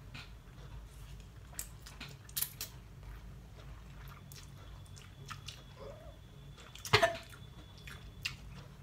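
People slurping and chewing mouthfuls of instant noodles, with scattered small wet smacks and clicks. One loud sharp sound stands out about seven seconds in.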